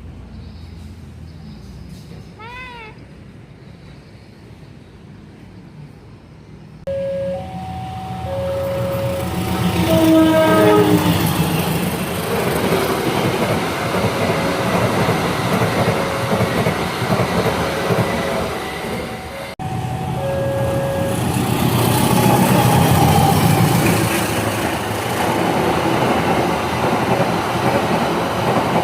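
A train passing close by, its wheels rumbling and clattering on the track, with a horn sounding. Before it, a quieter stretch with a short pitched call.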